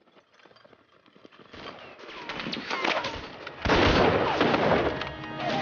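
Gunfire sound effects from a film firefight. Scattered shots start faint, build up, and turn into heavy, rapid shooting from about three and a half seconds in.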